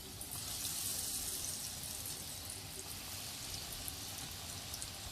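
Breadcrumb-coated chicken macaroni kebabs deep-frying in hot oil in a kadhai: a steady sizzle with scattered small pops, growing louder shortly after the start.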